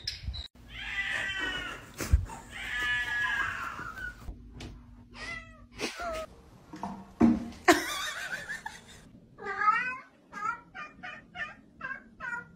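Cats meowing: long drawn-out meows in the first few seconds, then from near the end a run of short repeated meows, about three a second, from a cat calling out over a caught toy mouse. A sharp knock sounds about two seconds in.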